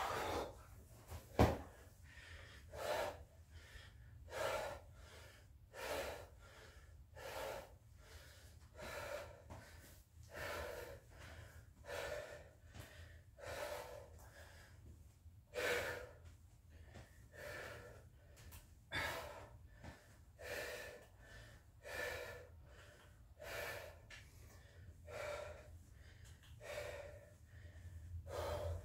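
A person breathing hard while recovering from exercise, a heavy breath about every second and a half, over a steady low hum. A single sharp knock sounds about a second and a half in.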